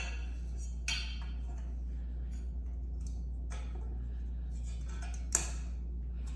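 A few light knocks and clinks from handling the parts of a Spirit Halloween Sam animatronic during assembly, over a steady low hum. The sharpest knock comes about five seconds in.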